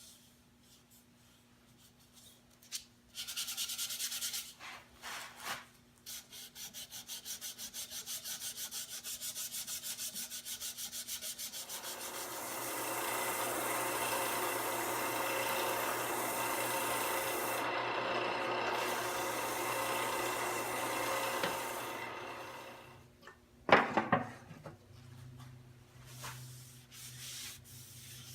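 Sandpaper rubbing against a walnut bowl spinning on a wood lathe: a few short scratches, then a pulsing scratch of about four strokes a second, then a steady scratching hiss. A single sharp knock comes near the end over the lathe's faint motor hum.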